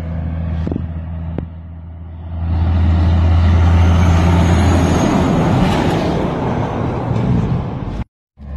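A heavy diesel truck hauling a box trailer drives close past. Its engine hum swells into a loud rush of engine and tyre noise as it goes by, then the sound cuts off abruptly near the end.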